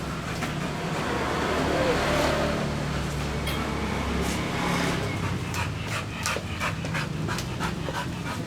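A pitbull panting, with scattered short clicks and a steady low hum underneath.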